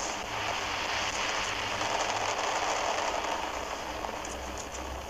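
Fireworks crackling: a dense, rain-like fizz of many small crackles that slowly fades, with no single loud bang.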